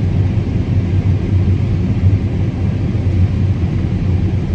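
Combine harvester running steadily while harvesting corn: a constant low engine and machinery drone.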